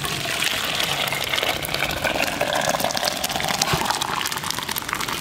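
Hot water full of grated coconut being poured from a large vessel into a stainless steel pot: a steady splashing gush of liquid into the metal pot. The coconut is being steeped in boiled water to draw out coconut milk.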